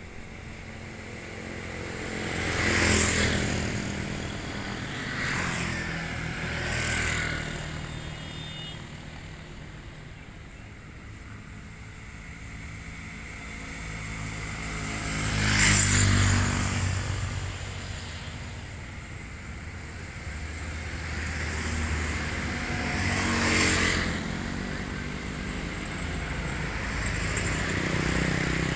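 Road vehicles passing one after another, engine and tyre noise swelling as each comes close and then fading, with four main pass-bys, the loudest about 16 seconds in, over a steady low engine hum.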